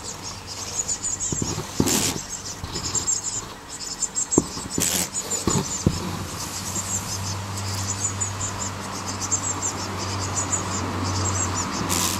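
Outdoor background sound: many fast, high-pitched chirps over a steady low hum that grows stronger about halfway through, with a few brief bursts of noise.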